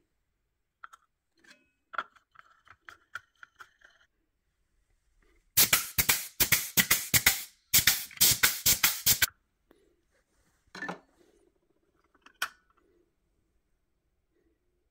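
Light clinks as a tapered roller wheel bearing is set onto a cone-type bearing packer. About five seconds in comes a grease gun forcing grease through the bearing: two bursts of rapid, loud crackling spurts, about four a second. A couple of fainter knocks follow near the end.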